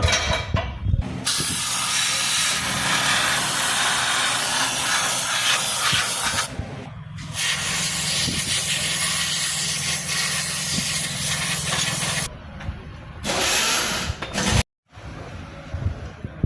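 Three long pressurised hissing jets, about five, five and one second long, sprayed over a Toyota engine idling steadily underneath.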